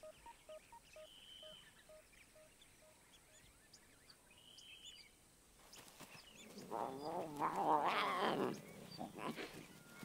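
A lion calling: a run of wavering, pitched calls lasting about three seconds in the second half. Faint bird chirps and the last few chiming notes of a soft melody fade out during the first three seconds.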